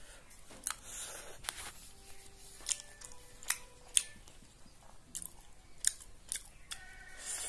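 A person chewing a mouthful of fried rice and Maggi noodles close to the microphone, with scattered sharp mouth clicks and smacks, the loudest about four seconds in.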